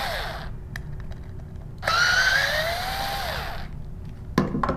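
Electric screwdriver with a No. 1 Phillips bit backing out the screws of a small diaphragm pump's cover, in two short runs. The first run stops about half a second in; the second starts about two seconds in and lasts under two seconds. In each run the motor whine rises, holds and then falls away.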